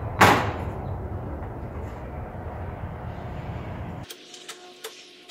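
A box level set down on a ribbed metal siding panel with one sharp metallic clank that rings briefly, about a quarter second in. A low steady rumble lies underneath and cuts off suddenly about four seconds in, leaving a few faint clicks.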